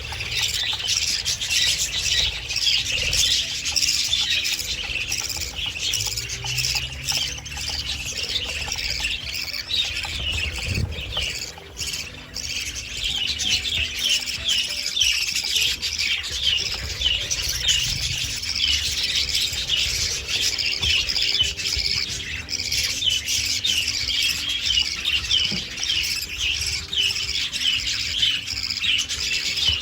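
A flock of budgerigars chattering and chirping continuously, many short overlapping chirps and warbles with no pause.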